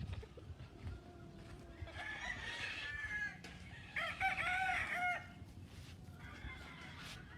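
Roosters crowing: two crows one after the other, about two seconds in and again about four seconds in, the second louder. A fainter crow follows near the end.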